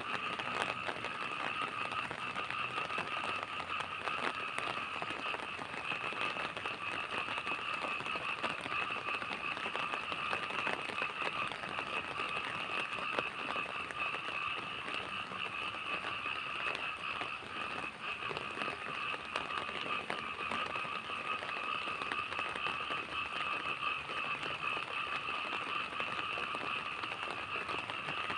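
Rain falling steadily, an even crackling patter, with two steady high tones running through it.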